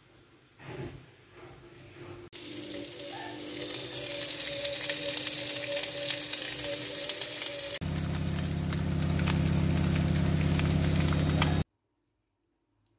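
Diced ham, chorizo and mushrooms sizzling in a frying pan, a dense crackling hiss with a steady hum underneath, in edited clips that cut off suddenly near the end. A few soft knocks come before the sizzling starts.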